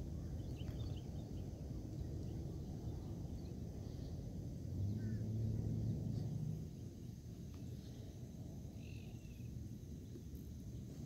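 Outdoor ambience: a steady low rumble with a few short, faint bird chirps. A low hum swells for about a second and a half midway, then fades.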